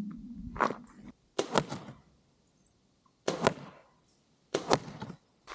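A series of about five short, sharp knocks, roughly a second apart, some of them doubled.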